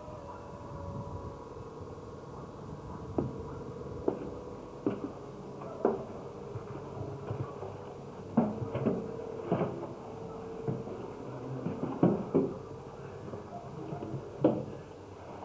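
Footsteps and knocks going down the concrete steps of an underground shelter and through its doorway: about ten sharp, irregular clunks roughly a second apart, over a faint steady tone.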